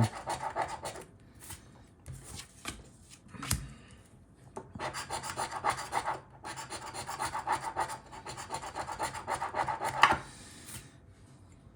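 Scratch-off lottery ticket, a $1 Cash Explosion 5X, having its coating scraped off in runs of rapid rasping strokes. There are short pauses between runs, and the scratching stops about ten seconds in.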